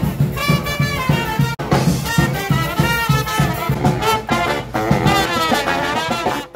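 Street brass band playing live: trumpets and saxophone over a quick, steady drum beat.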